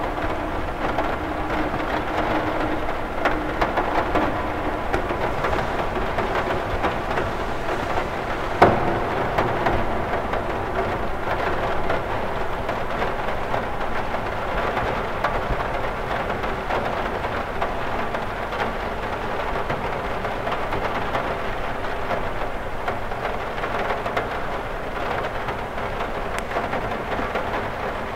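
Steady rain pattering densely on a window, with one sharper, louder drop tap about eight and a half seconds in.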